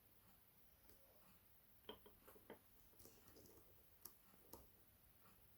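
Faint, sparse metallic clicks of a hook pick working the pin stack of a Kasp 19070 six-pin padlock under tension, as pins are probed and set. About half a dozen small clicks, starting about two seconds in.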